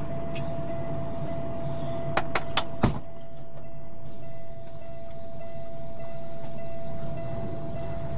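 Pickup truck engine idling steadily, heard from inside the cab, with a constant high whine over it. About two seconds in comes a quick run of four sharp clicks, the last one the loudest.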